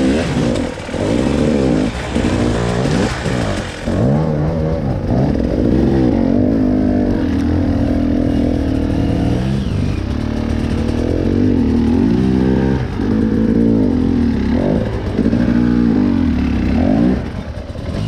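Off-road motorcycle engine revving up and down over and over, its pitch climbing and dropping every second or two, as the bike struggles to get up a steep trail climb.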